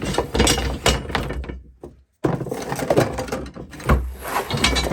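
Knocks, thuds and scraping as something is pushed and wedged into place over a vent. The sound cuts out completely for a moment about two seconds in.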